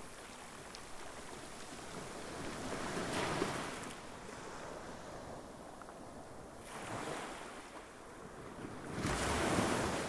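Small sea waves washing onto a beach, three waves a few seconds apart, the last one near the end the loudest.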